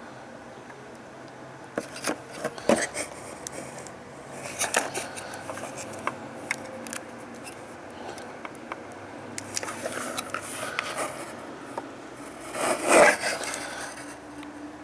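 Small clicks, taps and short scrapes of hands and a soldering iron working a capacitor's leads into a circuit board, with a louder scraping rub near the end.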